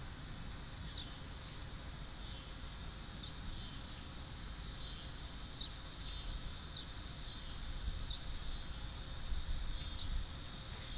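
A chorus of insects droning in a high, steady band that swells and dips about once a second, over a low rumble.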